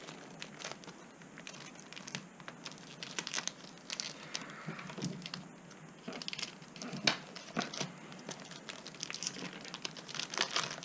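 Plastic packaging crinkling and rustling as a speedcube is unwrapped, with scattered small clicks and taps; one click about seven seconds in is the loudest.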